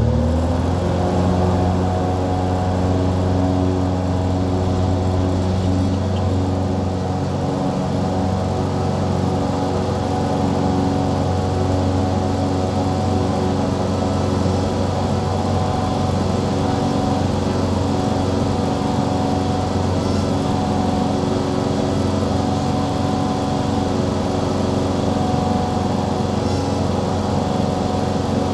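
Light single-engine airplane's piston engine and propeller running at takeoff power, heard from inside the cockpit through the takeoff roll and climb-out. The pitch steps up within the first second, then holds steady.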